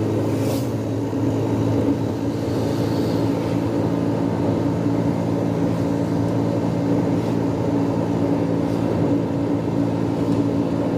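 Diesel tempo's engine running at a steady pitch while the vehicle is driven, a constant drone with road noise.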